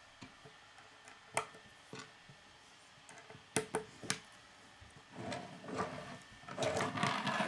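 Plastic K'nex pieces being snapped together by hand: a few sharp clicks, three close together around four seconds in, then a rustle and clatter of plastic parts being handled on a wooden table near the end.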